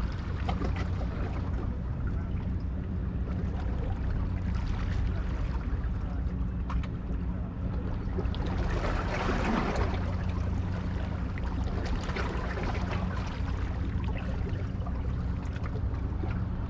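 Low, steady drone of large ships' engines with a rushing hiss of moving water over it; the hiss swells briefly about nine seconds in.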